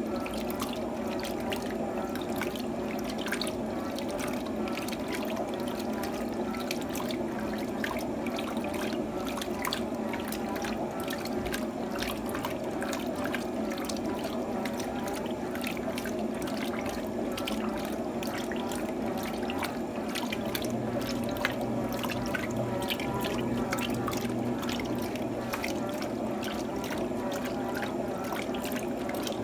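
Electrolux TOP8A top-loading washing machine with water running and splashing inside its tub, a steady rush with many small drips and splashes.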